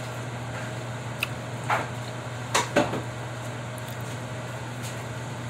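Someone chewing a piece of fried banana, with a few short mouth smacks and clicks about one to three seconds in, over a steady low hum.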